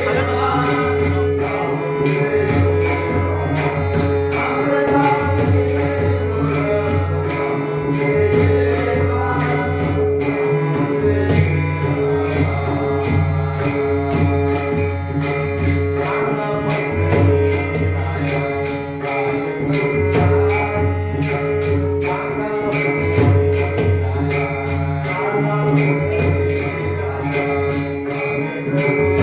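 Devotional bhajan music: a passage with a steady beat, jingling percussion strikes and held melodic tones.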